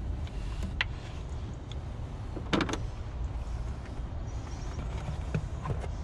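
Screwdriver and plastic parts clicking and knocking as the power steering reservoir is fastened back in an engine bay: a single click about a second in, a quick rattle of clicks near the middle (the loudest), and a few more near the end, over a steady low rumble.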